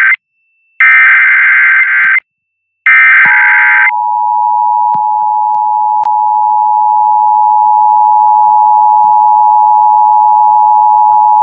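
Emergency Alert System SAME header data bursts: the tail of one burst, then two more of about a second each with silent gaps between. From about three seconds in, the steady two-tone EAS attention signal follows and holds. Together they mark the start of a National Weather Service flash flood warning broadcast.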